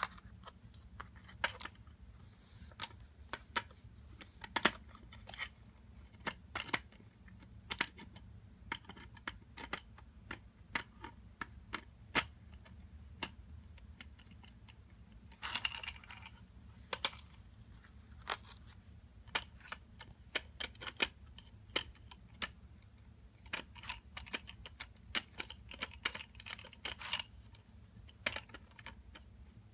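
Screwdriver and 9 mm 50-round Glock drum magazine being worked by hand as screws are backed out of the drum's neck: irregular sharp clicks of metal tool on screw and of the magazine's parts knocking, with brief scraping rattles about halfway through and again near the end.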